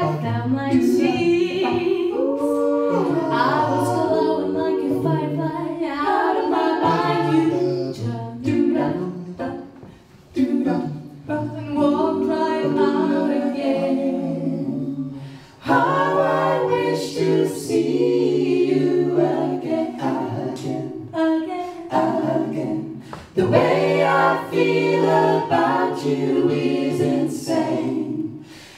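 A cappella vocal group of women's and men's voices singing in harmony, a woman singing lead over a low sung bass part, with short breaks between phrases.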